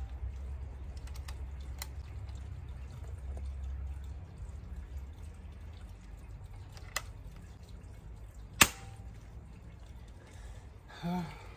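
A pre-charged pneumatic bullpup air rifle firing a pellet: one sharp, loud crack about three-quarters of the way through, with a fainter sharp click about a second and a half before it.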